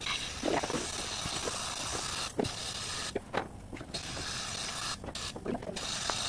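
Powder coat gun blowing powder with a hiss of compressed air, hot-flocking preheated glass jars. The hiss stops briefly about three seconds in and again about five seconds in, with a few light knocks.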